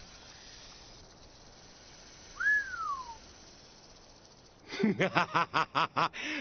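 A single short whistle that slides up and then down, about halfway through. Then, over the last second and a half, a man laughs loudly in quick repeated bursts.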